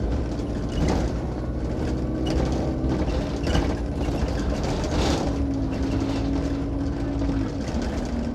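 Enviro 200 Dart single-deck bus heard from inside while it drives, with its engine running steadily; the engine note drops a step twice. Over it, something behind the seat rattles in short clatters several times.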